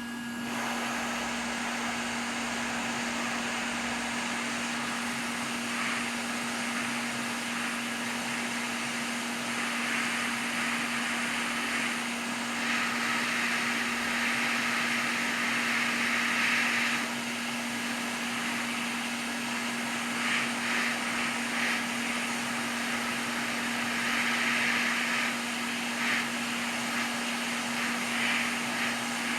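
Hot air rework station blowing steadily while desoldering a PS5's HDMI port, over a constant low hum. The air rush swells and eases in patches.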